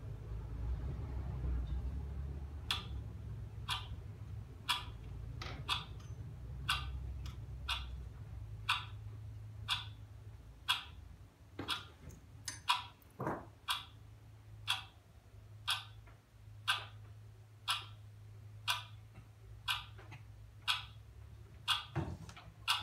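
Regular ticking, about once a second, starting a few seconds in and keeping an even beat, with a few duller knocks falling between the ticks, over a low steady hum.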